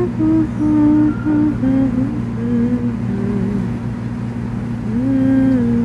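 A slow tune hummed in held notes that glide from one to the next, with a rising slide near the end, over a steady low drone.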